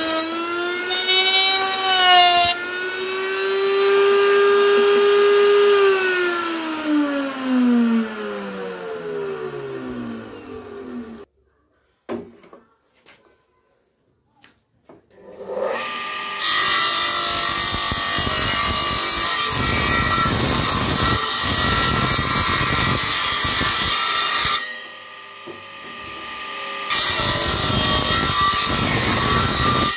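An electric power tool motor runs with a whine, holds a steady higher pitch when free, then winds down after switch-off, falling in pitch to a stop. After a short quiet gap with a few clicks, a bench-top table saw runs and cuts a wooden plank, with a dip in the noise about two-thirds through before the cutting resumes.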